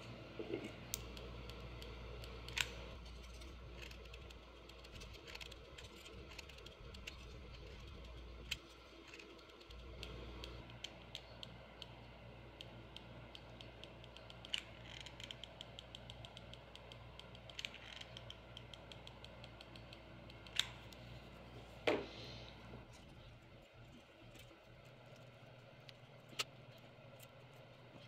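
Light clicks and taps as small wooden hexagon pieces and a stainless steel mug insert are handled and set on a workbench, with a couple of short fast runs of clicking about halfway through, over a low steady hum.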